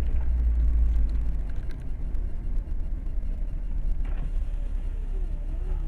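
A car's engine and tyres rumbling steadily as it drives along, heard from inside the cabin. The low rumble is loudest at first and eases off slightly about a second in.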